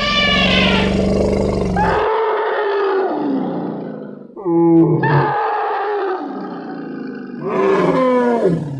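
A run of elephant trumpeting and roaring calls, about five in a row, each falling in pitch. The first is the loudest, with a deep rumble beneath it.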